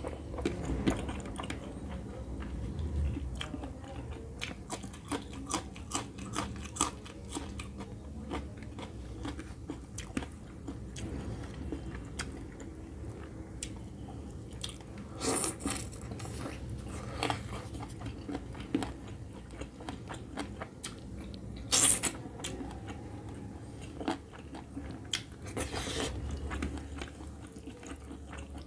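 Close-miked chewing and wet lip-smacking of a person eating chicken curry and rice by hand, a steady run of small mouth clicks. A few louder noisy sounds stand out, the loudest about two-thirds of the way through.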